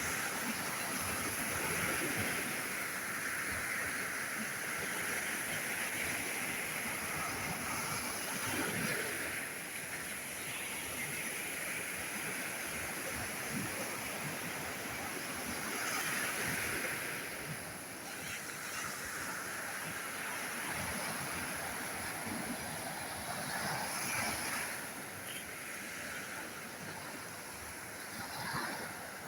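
Sea surf washing onto the shore: a continuous rushing that swells roughly every seven to eight seconds as waves break.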